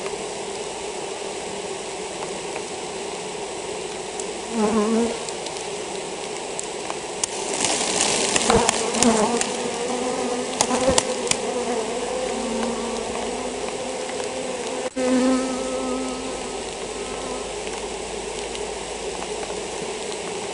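Honeybees buzzing in a steady dense hum, with single bees passing close now and then and swelling louder. In the middle, a few sharp knocks and rustling as a comb frame is handled.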